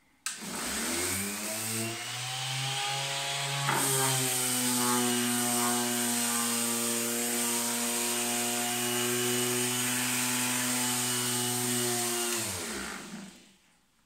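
Electric orbital sheet sander switched on and sanding a wooden board: its motor spins up with a rising whine, runs at a steady hum, then is switched off about twelve and a half seconds in and winds down. There is a brief knock about four seconds in.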